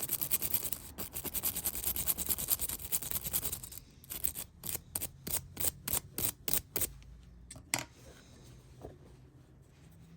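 Old Case slimline trapper pocket knife being worked on its freshly oiled joint: a rapid, gritty clicking for about four seconds, then about a dozen separate sharp clicks, roughly three a second, and one last click near eight seconds in.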